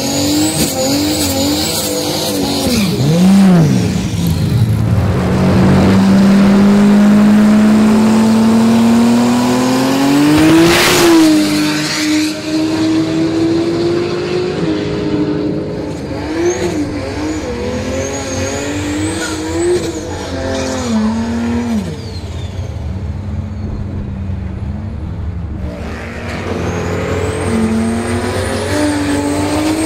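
Turbocharged Nissan RB30 straight-six in a Holden VL Commodore drag car. The revs bounce up and down with some tyre squeal during a burnout, then climb in one long pull. After that they rise and fall, drop lower for a few seconds, and climb again near the end.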